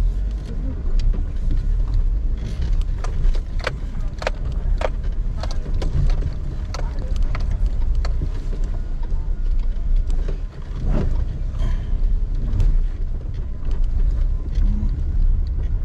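Car driving, a steady low rumble of engine and road noise with frequent short knocks and rattles.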